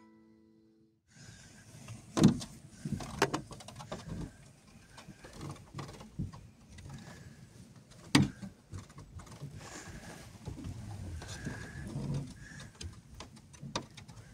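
Handling and rustling noises inside a car, with scattered small knocks and two sharper knocks, about two and eight seconds in, as a hand moves along the inside of the misted rear window.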